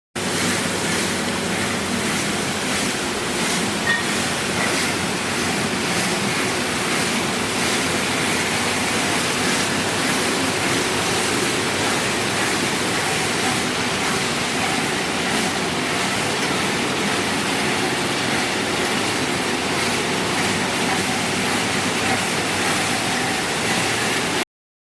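Industrial crate washing machine running: a loud, steady rush of spraying water mixed with machine running noise. It stops abruptly near the end.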